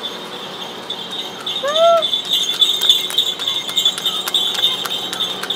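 Street sounds as a horse-drawn cart passes: a steady high ringing runs throughout, a short rising-and-falling call comes about two seconds in, and then a rhythmic clicking of about three a second follows.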